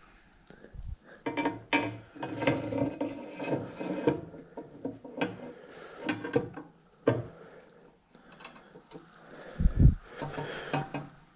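Metal motorcycle steering parts and frame being handled: irregular clinks, knocks and clatter, with a loud dull thump near the end.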